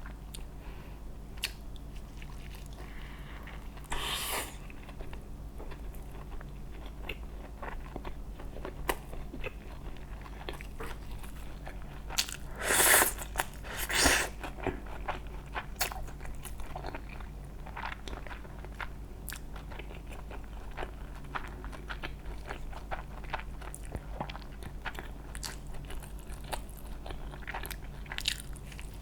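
Close-miked eating: crunchy biting and chewing, a stream of small crackling clicks with three louder crunching bites, about 4, 13 and 14 seconds in.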